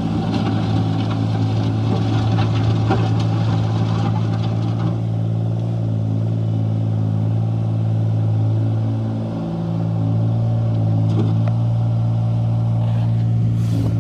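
Terramite T6D backhoe's engine running steadily with a constant hum, dipping briefly about two-thirds of the way through. Light rattling over the first few seconds.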